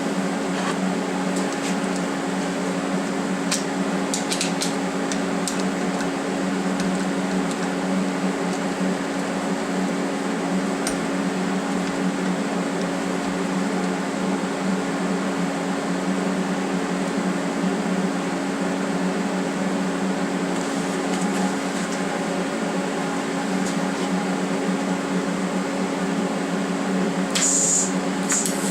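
TIG welder running with a steady electric hum and whir, with a few light clicks about four seconds in and a short hiss near the end.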